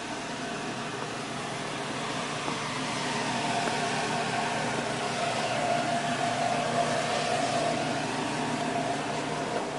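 Steady mechanical hum with a held mid-pitched tone, growing somewhat louder through the middle.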